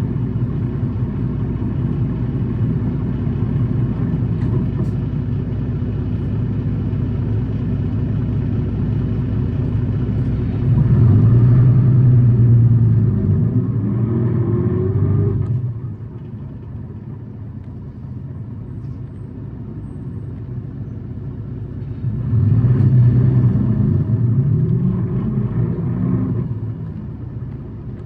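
City bus engine and running noise heard from inside the cabin. About eleven seconds in, the engine pulls harder with a rising pitch for a few seconds, then drops back to a quieter, low running; the same rise comes again near the end.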